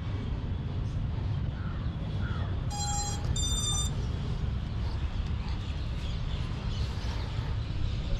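Two short electronic beeps from a freshly powered FPV quadcopter's ESCs and motors, about three seconds in: the start-up tones after the battery is connected. They sound over a steady low background rumble.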